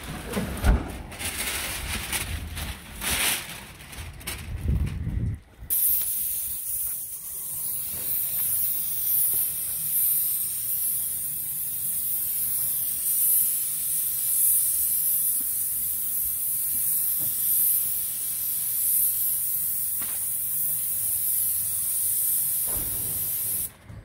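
An airless paint spray gun spraying, fed by a Graco Ultra Max II 490 PC Pro electric sprayer through a 310 fine-finish tip at 75% pressure: a steady high hiss of paint being atomised. The hiss starts about six seconds in, after a few seconds of low rumbling noise, and cuts off suddenly just before the end as the trigger is released.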